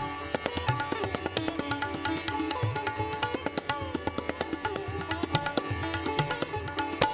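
Hindustani classical instrumental music: a plucked string instrument with gliding notes over a steady drone, accompanied by rapid tabla strokes.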